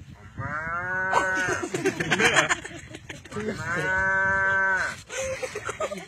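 A man imitating a cow mooing with his voice: two long moos, each rising and then falling in pitch, as of a tethered cow calling for its mother.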